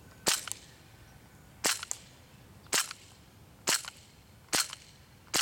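A KWC CO2 blowback Desert Eagle airsoft pistol fired semi-automatically six times, about one shot a second, each sharp crack followed by a quick lighter click. Its CO2 cartridge is starting to run low.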